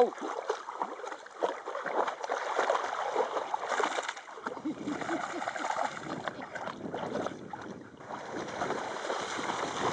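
Dogs paddling and wading through shallow water: irregular splashing and sloshing.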